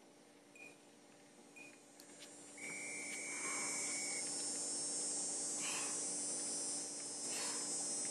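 Interval timer counting down: two short beeps a second apart, then one long beep about two and a half seconds in that marks the start of a Tabata work interval. A steady high hiss sets in with the long beep, and soft puffs come about every two seconds as the pike push-ups begin.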